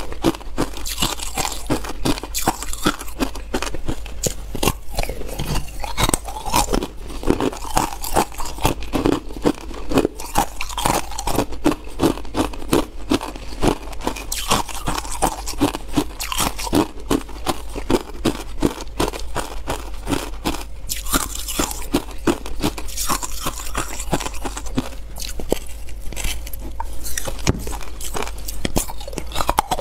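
Ice being chewed and crunched in the mouth, close to the microphone: a continuous run of crisp cracks and crunches with no pause.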